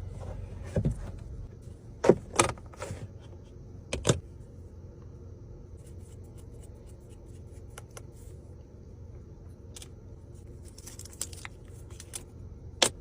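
Scattered sharp clicks and knocks, with a brief jingle, over a steady low hum; the loudest knock comes near the end.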